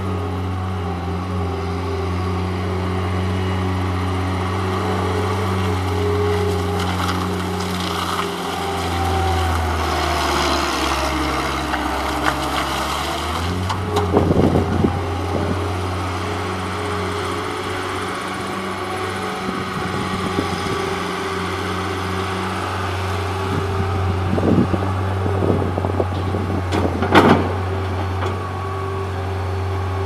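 JCB Robot 170 skid steer loader's diesel engine running steadily as the machine drives and turns. The engine note dips lower for a few seconds about a third of the way in, then comes back up. Sharp metallic knocks and clanks come in the middle and again near the end.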